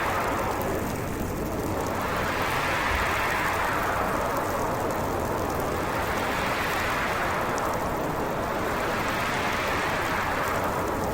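Howling winter storm wind: a dense, steady rush of noise that swells up in pitch and sinks again in slow gusts, about every three to four seconds.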